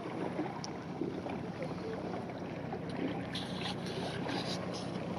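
Water lapping and gurgling around a kayak on calm water, with a few short splashes of paddle water from about three seconds in, over a steady low hum.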